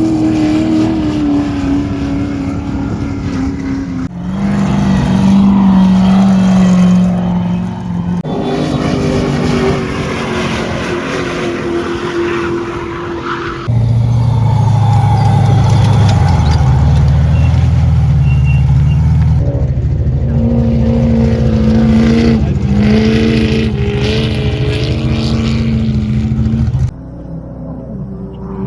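Off-road race car engines running loud at a steady pitch, heard in several short clips cut together, with sudden changes in sound about every four to six seconds and a long lower, heavier stretch in the middle.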